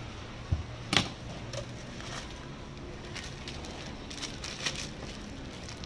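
A cleaver knocking against a pineapple and the cutting board, twice in quick succession near the start, then the crackle of a thin plastic bag being opened and handled.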